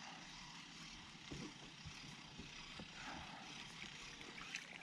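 Quiet handling of a baitcasting reel: a few light clicks and ticks as the handle is worked, over a faint steady hiss.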